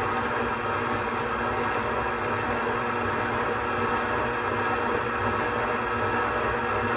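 Electric mixer running steadily as it mixes a stiff bread-roll dough: an even motor hum with a constant whine.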